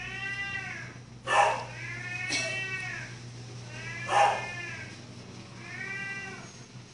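A white cat meowing four times, long drawn-out meows that rise and fall in pitch. Between them come two short, loud breathy bursts, the loudest sounds.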